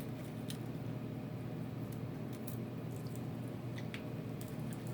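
Someone starting to eat Korean spicy fried chicken: a few faint short clicks and small eating noises over a steady low hum.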